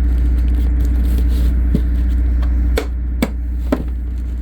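Steady low rumble, with three short sharp clicks in the second half; the rumble drops a little at the first click.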